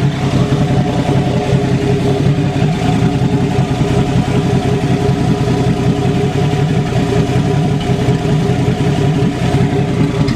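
AMC 258 (4.2 L) inline-six engine with a straight-piped exhaust, idling low and steady.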